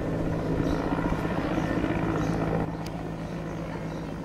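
Large military helicopter flying overhead: a steady rotor and engine drone with a low hum, dropping a little in level about two and a half seconds in.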